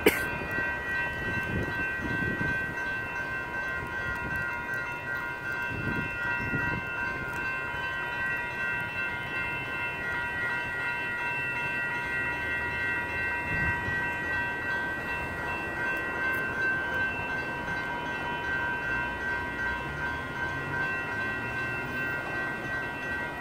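Several electronic railroad crossing bells (General Signals and WCH Type 2) ringing together and steadily while the crossing is activated. A few low rumbles sit underneath, and there is a sharp click right at the start.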